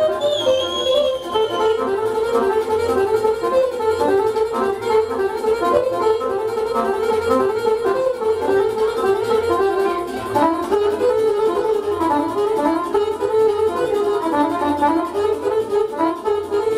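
Romanian folk party-band music in an instrumental passage: a winding lead melody over a steady, regular beat.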